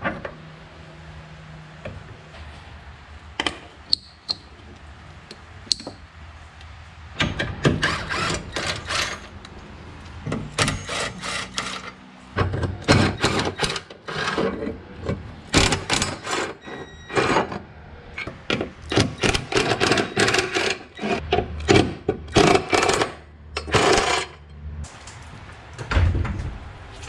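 Tools and metal parts clicking and clattering under a car as the rear end is unbolted and lowered out on a trolley jack. There are a few scattered knocks at first, then rapid bursts of metallic clicking and clanking for most of the time, easing off near the end.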